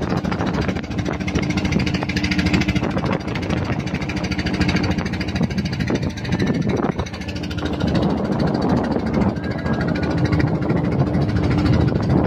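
A wooden boat's engine running steadily with a low hum, under wind and water noise.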